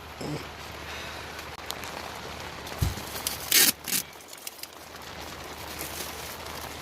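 Duct tape pulled off the roll in two quick rips about three and a half seconds in, just after a low thump, over a low steady hum.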